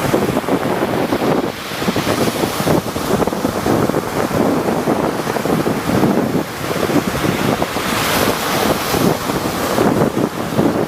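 Rough sea waves surging and breaking, a continuous loud wash of surf that swells and eases every second or two, with wind buffeting the microphone.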